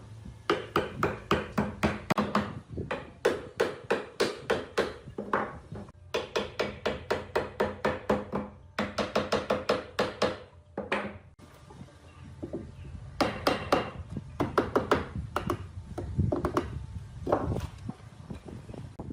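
Repeated hammering on wood: sharp blows in runs of several seconds, about four a second, each with a short ringing tone, broken by brief pauses.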